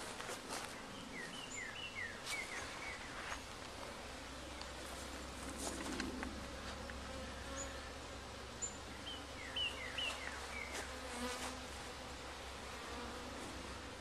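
Honey bees buzzing around a backyard hive: a faint, steady hum that swells for a moment about six seconds in as a bee passes close. A bird's run of short chirps sounds twice, about a second in and again around nine seconds.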